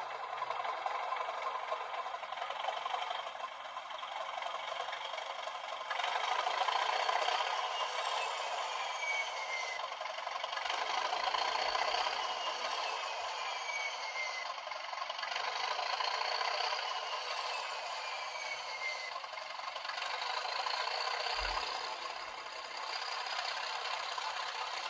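Bachmann Class 37 model locomotive's factory DCC sound chip playing a revving English Electric diesel engine through its standard factory speaker: thin, with no low end, getting louder about six seconds in, and with several high whistling glides falling and rising. The model rattles along the track under it.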